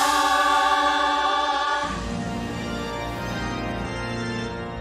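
Musical-theatre number: a chorus holds a sung chord over the orchestra, giving way about two seconds in to a sustained organ chord.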